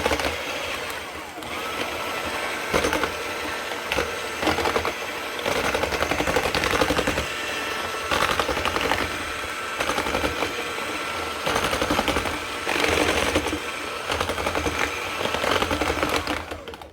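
Hand whisk beating a thin liquid batter in a bowl: a fast, continuous rattle of the wires against the bowl that stops just before the end.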